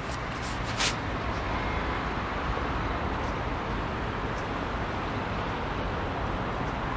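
Steady road traffic noise, an even wash of passing vehicles, with one short click about a second in.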